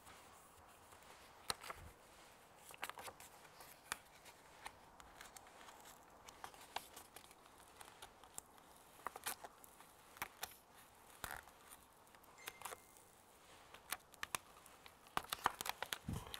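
Faint crinkling and crackling of a paper backing sheet being peeled off a vinyl sticker while a felt-edged squeegee presses the vinyl down, in scattered small crackles and ticks. Near the end the crackles come thicker as the thin vinyl tears.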